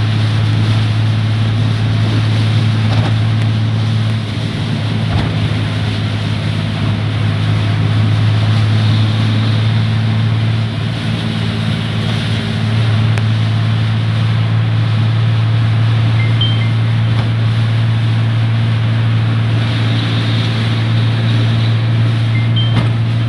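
Heavy rain and strong wind making a steady, loud rushing noise over a constant low hum.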